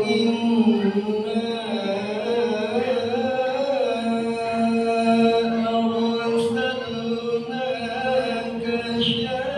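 A man chanting a devotional Maulid recitation through a handheld microphone, one voice holding long melodic notes with slow wavering ornaments.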